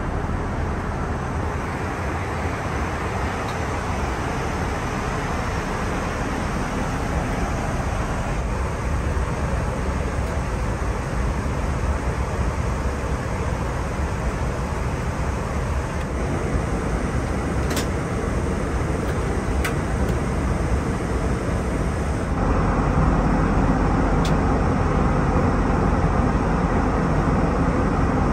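Steady rushing cabin noise of an Airbus A320 in flight: airflow and engine drone. It steps up louder about two-thirds of the way through, with a few faint clicks.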